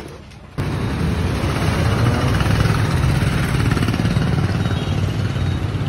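Steady motor vehicle engine and road noise, cutting in abruptly about half a second in.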